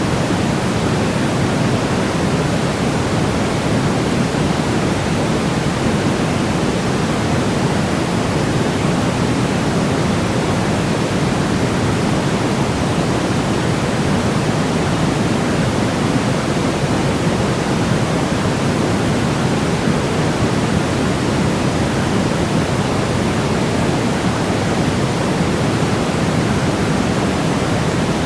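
Steady, unbroken baby-sleep white noise: an even rushing hiss, weighted toward the deeper end.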